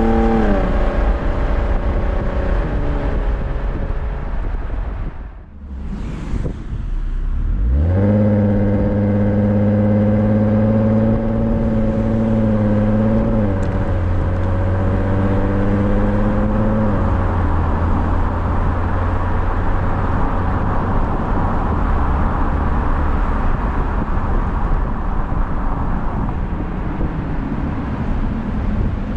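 Porsche Cayenne 957's 3.6-litre VR6 engine through its stock exhaust, driving. The pitch falls at first, dips away briefly about five seconds in, then climbs sharply and holds steady, stepping down in pitch twice further on.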